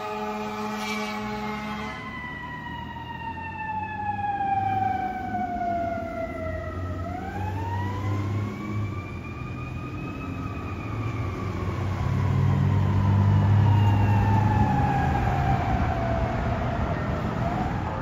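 Fire engine's siren in a slow wail: its pitch falls for several seconds, rises, falls again and begins to climb near the end. The tail of an air horn blast fades out in the first second or so, and diesel engine rumble swells midway.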